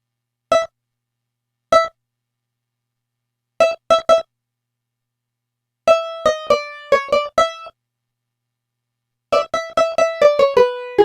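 Roland D-05 synthesizer playing a preset, short notes that die away quickly: two single notes, then three close together, then two quick runs of notes, with dead silence between the groups.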